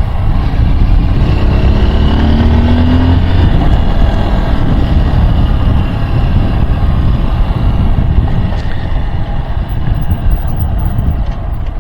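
Small Honda motorcycle's engine rising in pitch as it accelerates about two seconds in, under a steady rush of wind on the helmet-mounted microphone.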